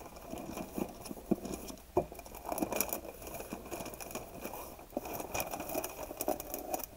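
Wrapping paper rustling and crinkling as it is carefully peeled off a boxed gift, with irregular small crackles and taps.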